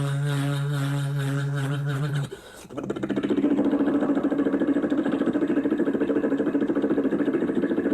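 A man vocally imitating a helicopter: first a steady, pitched engine-like hum, then, after a brief break, a rapid, evenly pulsing chop like rotor blades.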